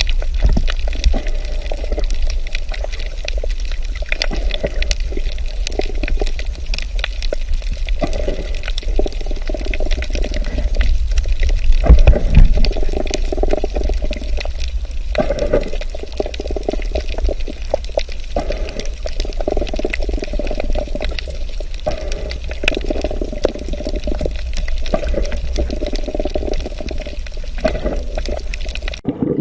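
Underwater ocean ambience: gurgling, bubbling water over a steady low rumble, swelling louder about twelve seconds in, then cutting off just before the end.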